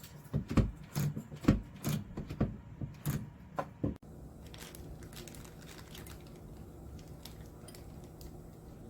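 Sharp clicks and knocks, about a dozen in the first four seconds, from a smart deadbolt door lock and door being handled. After an abrupt change, a steady low hum with a few faint ticks.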